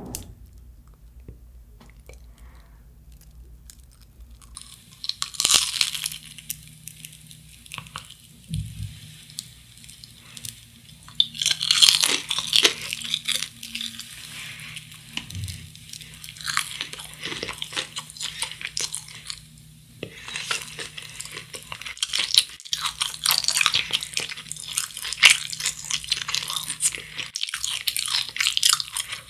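Crisp fried breaded crust of a Kodano long cheese stick crunching as it is bitten, broken and chewed, in repeated stretches of dense crackling. It starts a few seconds in and is thickest near the end.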